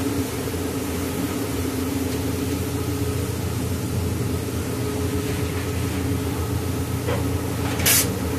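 A steady, low mechanical hum of an engine running, with a short sharp noise burst near the end.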